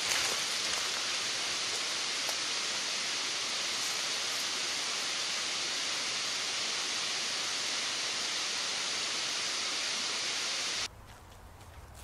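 Steady, even hiss from a trail camera's built-in microphone, with no distinct sounds standing out above it; it cuts off abruptly near the end.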